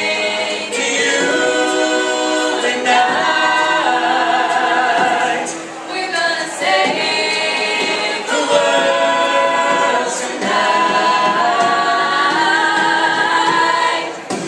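A cappella vocal group singing held chords in close harmony without words, with short breaks between phrases about a third and two-thirds of the way through.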